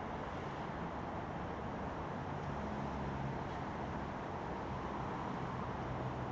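A diesel engine running with a steady low hum under a constant hiss; the hum's pitch shifts slightly a couple of seconds in.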